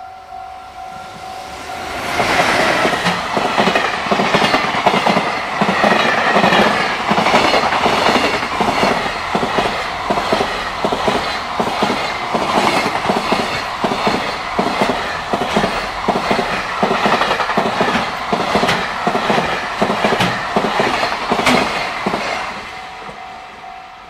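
Japanese level-crossing bell ringing steadily. About two seconds in, a JR Freight container train hauled by an EF210 electric locomotive rushes past close by, its wagon wheels clattering rhythmically over the rail joints for about twenty seconds and drowning out the bell. The bell is heard again once the last wagon is gone.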